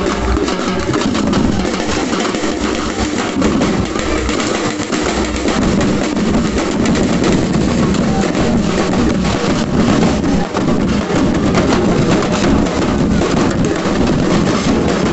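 Carnival drum troupe playing: many bass drums and snare drums beaten together in a loud, dense rhythm with no break.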